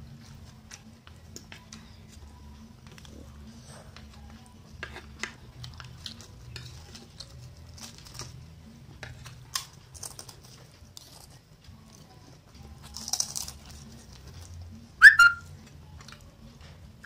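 Eating sounds of two people on a plate of fried instant noodles: scattered soft chewing and smacking clicks and fingers and a spoon working the noodles, over a low steady hum. Near the end comes a loud, brief, ringing clink of cutlery on the plate.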